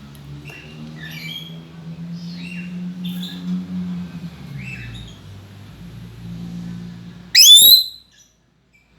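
Lory (nuri parrot) calling: a run of short chirps, then about seven seconds in one very loud, shrill call that sweeps up in pitch. A low steady hum runs under the chirps.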